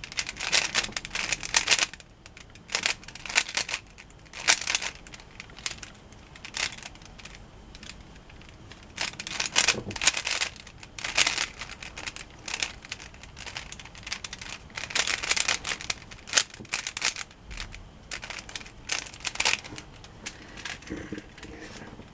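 Rubik's cube being turned by hand in quick runs of layer moves, the plastic layers clicking and scraping, with pauses between runs.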